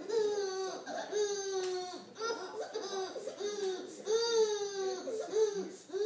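Baby laughing hard in a run of long, high squeals, one after another, each sliding down in pitch.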